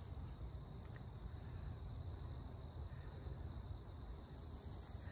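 Insects droning steadily at a high pitch, a continuous chirring background, with a faint low rumble underneath.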